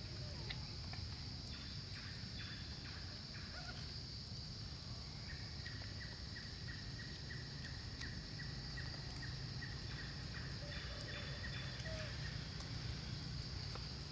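Forest ambience: a steady high-pitched insect drone over a low rumble, with a bird calling in a rapid run of short repeated notes for several seconds midway and a few brief chirps.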